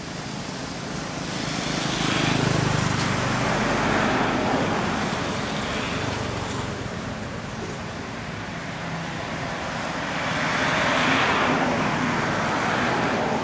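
Motor vehicles passing on a nearby road, one after another: each engine hum and tyre noise swells up and fades away, twice.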